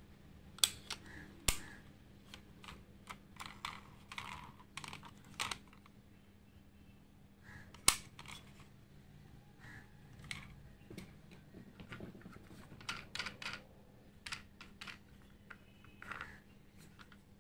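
Diecast model cars being handled: irregular light clicks and taps of the small metal and plastic bodies, doors and wheels against fingers, with a few sharper clicks, the loudest about a second and a half in and near eight seconds.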